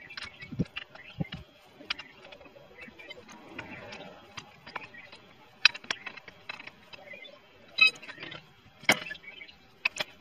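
Scattered metallic clinks and knocks as an alloy wheel is handled and offered up to the car's rear hub, with a quick run of rapid ticks about three quarters in. The wheel will not seat because the hub is bigger than the wheel's centre bore.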